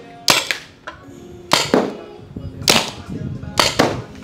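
Paintball markers firing at balloon targets: four sharp shots, roughly a second apart, over background music.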